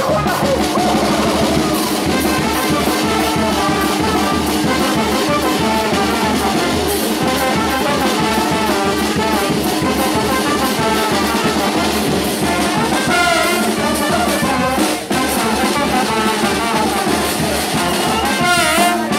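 Charanga brass band playing a lively tune: trombones, trumpets and sousaphone over a steady beat from a bass drum with mounted cymbal and a snare drum.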